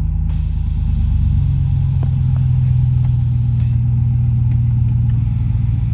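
2003 Chevrolet Silverado pickup's engine idling steadily just after being started, with a light hiss in the first half and a few faint clicks.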